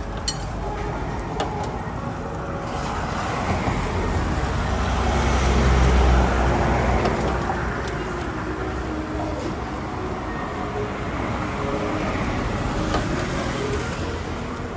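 Road traffic going by, with one vehicle swelling loud and fading past about halfway through. A few light sharp clicks come from eggs being cracked and tapped at the cooking pans.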